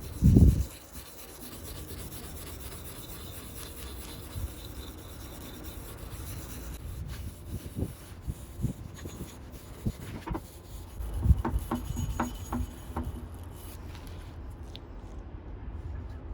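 Hand scraping and rubbing on a steel axe head to strip off its paint, a steady scratchy hiss broken by scattered knocks. A heavy thump comes just after the start.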